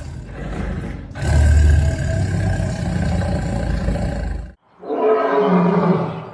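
Tiger roaring: a long, rough roar that cuts off suddenly about two-thirds of the way through, followed by a shorter, more tonal call.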